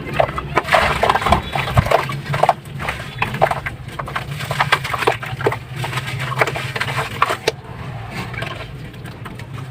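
Sand-cement and ash slabs crumbling in water: rapid, irregular crunches and crackles that thin out about three-quarters of the way through.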